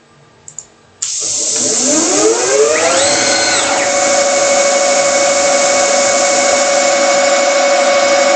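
CNC lathe spindle motor starting about a second in, after two short clicks. It comes in suddenly with a hiss and a whine that climbs in pitch for two to three seconds as the spindle spins up, then runs steadily at about 1200 rpm with an even whine over the hiss.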